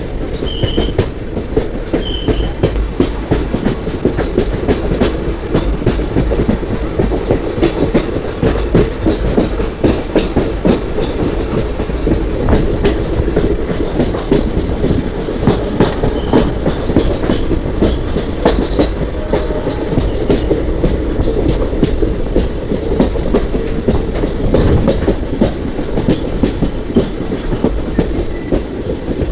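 Passenger train running along the track, a steady rumble with the clickety-clack of the coach wheels passing over rail joints.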